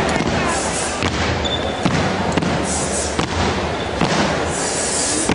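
Step team stepping: stomps on a hardwood gym floor and claps, struck together in quick succession.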